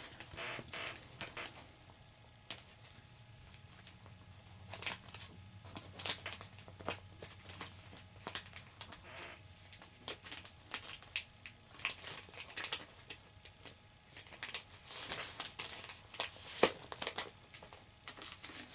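Plastic comic-book bag crinkling and rustling as it is handled, in irregular sharp crackles.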